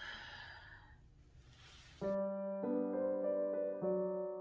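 A short breathy noise, then background piano music starts about two seconds in, playing a gentle melody with chords.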